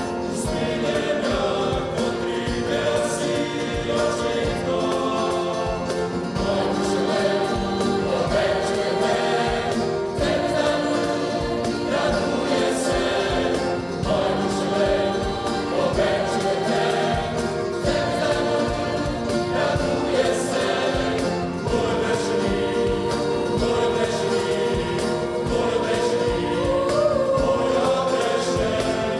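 Mixed chamber choir singing a sacred choral arrangement, with instruments accompanying and a light percussion beat, likely the cajon, under the voices.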